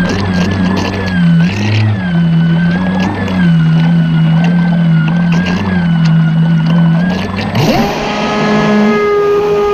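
Pro Boat Impulse 31 RC boat's brushless electric motor whining over the rush of water along the hull, its pitch wavering at part throttle. About two-thirds of the way in, the whine sweeps steeply up in pitch and holds high as the throttle opens and the boat speeds up.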